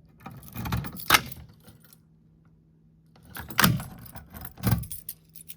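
A fire alarm pull station being operated by hand, with keys jangling: a cluster of sharp metallic clicks in the first second, then two louder clacks about three and a half and nearly five seconds in.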